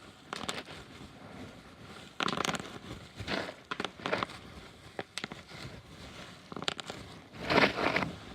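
Bubble wrap being squeezed and popped: irregular bursts of crackling pops mixed with crinkling plastic, the loudest burst near the end.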